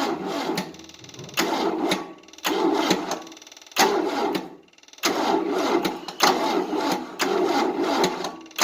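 Starter motor of a 1988 Tennant 255 Series II sweeper cranking its engine in a series of short bursts, each about a second long with brief pauses between, the engine turning over without catching. This is a no-start that just cranks, run off a jump booster.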